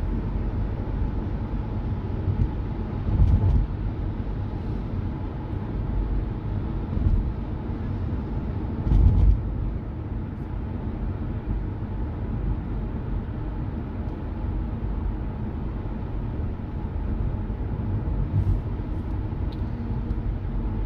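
Car driving along, heard from inside the cabin: steady low tyre and engine rumble, with a few short thumps from the road, the loudest about three and nine seconds in.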